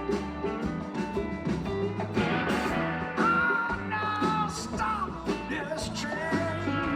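Live blues-rock band playing: electric guitar lines that bend and slide in pitch over steady bass and drums.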